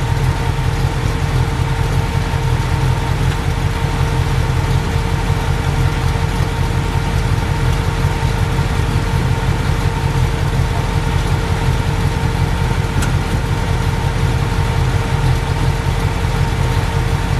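Vehicle engine running at a constant speed: a steady low drone with an even hum over it and no revving.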